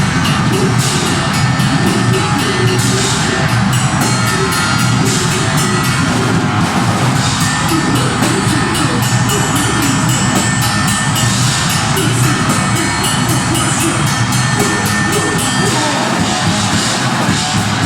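Live deathgrind band playing loud and fast: distorted guitars, bass and rapid blast-beat drumming, with shouted vocals.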